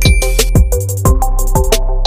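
Background music with a steady beat: drum hits over a bass line and sustained synth tones.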